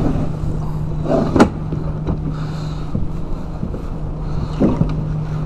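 Electric trolling motor humming steadily, with a sharp knock in the boat about a second and a half in.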